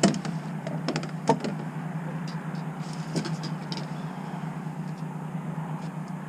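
Knocks and clatter of fishing gear and a landing net being handled on a pontoon boat's deck, a few sharp knocks in the first second and a half and a couple more around three seconds in, over a steady low hum.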